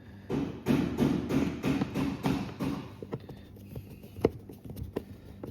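Screws being driven back into the plastic air filter housing lid: a quick, even run of turning strokes, about three or four a second, for the first half, then scattered sharp clicks.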